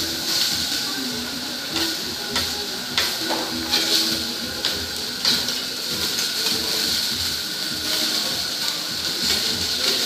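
Meat sizzling on a steel teppanyaki griddle with a steady hiss, while metal spatula and fork click and scrape against the hot plate several times.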